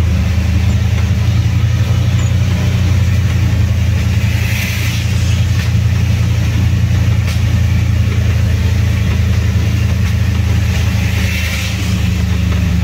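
Air-cooled VW Kombi's flat-four engine running steadily under way, heard from inside the cab with road noise.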